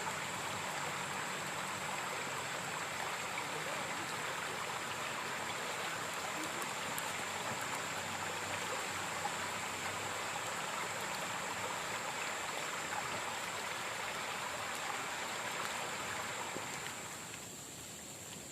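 River water flowing steadily over stones, an even rushing noise that drops away about a second before the end.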